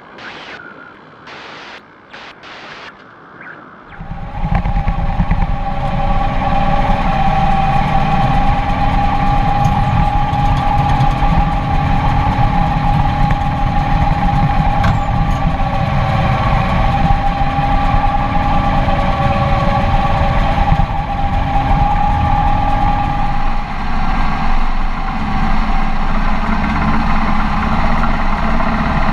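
A few short whooshing bursts of a logo intro, then from about four seconds in a Case IH 4240 Pro tractor's diesel engine running loud and steady at working speed while hay baling, with the baler running behind it. A steady high whine sits over the engine's low rumble.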